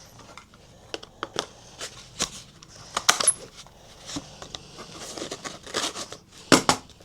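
Office hole punch working through a folded sheet: handling and rustling with sharp clicks, and the punch snapping through loudly about three seconds in and again near the end.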